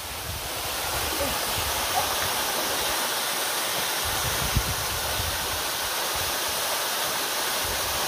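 Steady rushing of a waterfall pouring into a rock pool.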